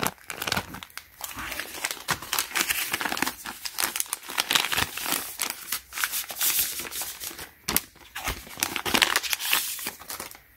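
Packaging crinkling and rustling in irregular bursts: a plastic bag holding a new saw chain and a brown paper sleeve around the guide bar being handled and opened.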